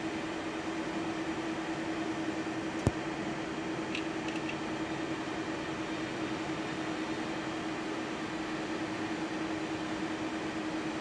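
Steady flight-deck noise of an Airbus A330 holding on the runway with its engines at idle and both air-conditioning packs on: an even hiss with a steady low hum. There is one sharp click about three seconds in.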